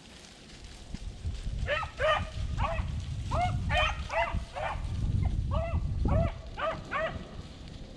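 Beagles baying on a rabbit's trail: a string of rising-and-falling bawls, about two a second, starting about two seconds in. Wind buffets the microphone with a low rumble underneath.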